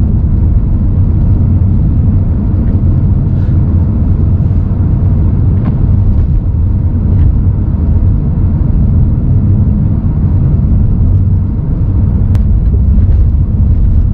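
Steady low rumble of road and engine noise inside a car driving on a snowy highway.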